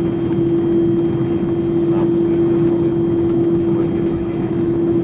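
Airbus A330-300 passenger cabin while taxiing: a steady hum of engines and air systems, with one constant droning tone held level throughout.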